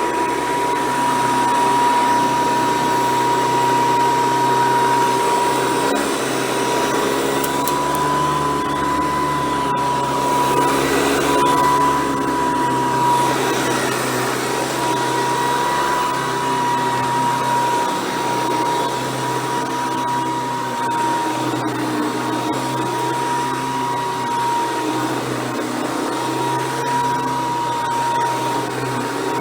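Hoover Decade 800 upright vacuum cleaner running steadily as it vacuums, with a constant high-pitched whine over the motor and air noise.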